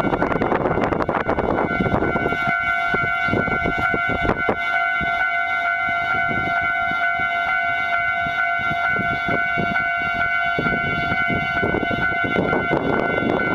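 Wind buffeting the microphone in gusts, heaviest at the start and near the end, with a steady high-pitched tone and its overtones running through most of it.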